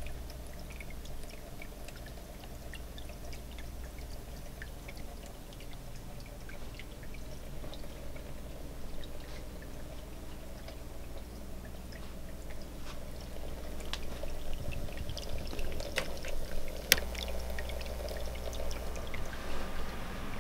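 Homemade fog tornado machine running: a steady fan hum with a faint watery bubbling and scattered small ticks. Two sharp clicks come about a second apart, roughly three quarters of the way through.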